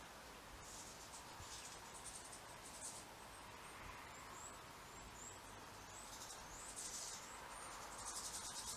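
Faint, high twittering and chirping of European goldfinches in short bursts. A run of quick little rising chirps comes about four seconds in, and the twittering grows louder near the end.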